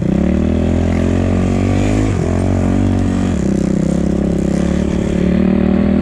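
250cc enduro motorcycle engine running under throttle, its pitch climbing, with two brief drops about two and three and a half seconds in before it rises again.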